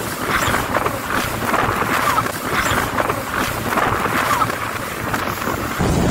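Jet ski running over choppy sea: water rushing and splashing against the hull, with wind buffeting the microphone. Near the end it gets louder and deeper.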